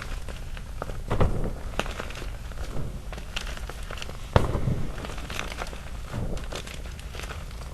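Small chunks of gym chalk being crushed in loose chalk powder: irregular soft crunches and little snaps, the sharpest about a second in and again a little past halfway.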